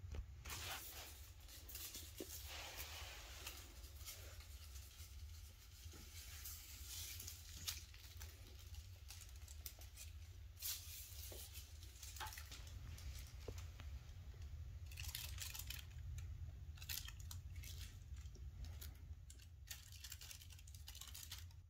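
Crinkly gold foil tinsel on a cat wand toy rustling and crackling in short, irregular rustles as kittens bat and pull at it, over a steady low hum.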